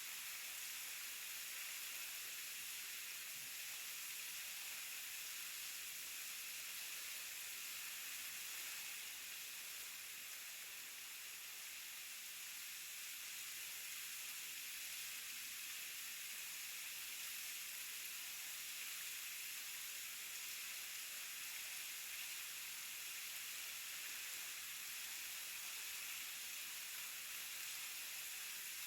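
Waterfall rushing: a steady, even hiss of falling water and spray, with little deep rumble.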